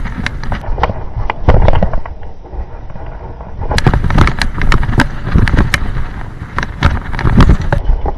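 Mountain bike ridden fast over a rough dirt and gravel trail: rolling tyre noise with many sharp clicks and rattles from the chain and frame, and several heavy thumps as the bike hits bumps, about a second and a half in, around four to five seconds in, and near the end.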